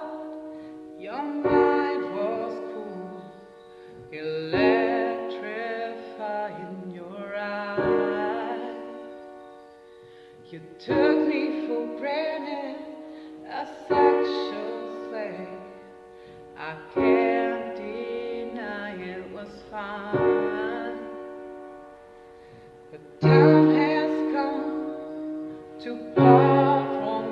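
Piano playing the song's introduction: full chords struck about every three seconds, each left to ring and fade before the next.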